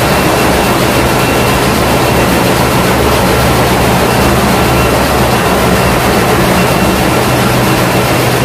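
Ship's engine-room machinery running: a loud, steady mechanical din with a low hum underneath and a faint high whine on top.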